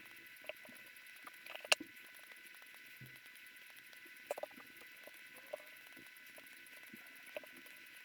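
Small fishing pliers snipping fishing line, heard as scattered faint clicks and snips over a steady hiss in sped-up footage. The sharpest snip comes about two seconds in.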